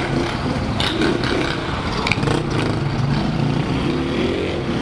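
Motorcycle engines idling close by, steady and low, with one rising in revs near the end as a bike pulls away.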